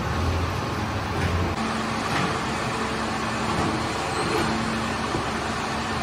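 Steady rushing drone of bakery machinery. A low hum underneath drops away about a second and a half in, leaving a fainter steady tone over the rush.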